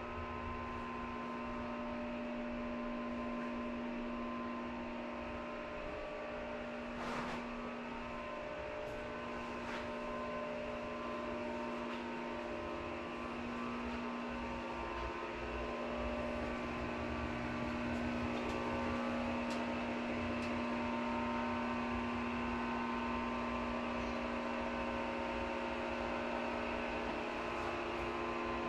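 A motor-driven appliance, like a fan, running with a steady machine hum made of several constant tones, with one faint click about a quarter of the way through.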